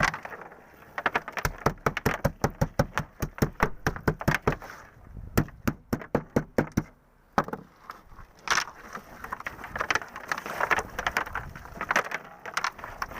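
A rapid, irregular run of sharp knocks and clatter, several a second, that thins out about seven seconds in and picks up again as a looser clatter near the end.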